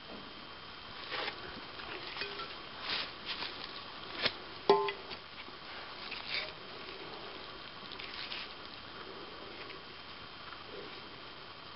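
Irregular clicks, taps and light scrapes of selenite crystal and gypsum rock being handled and knocked together by a gloved hand. The loudest is one sharp knock with a brief ring a little under five seconds in.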